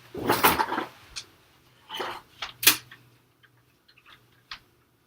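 Rustling and a few sharp plastic clicks from a toy blaster being handled. The loudest click comes a little under three seconds in, followed by faint scattered ticks.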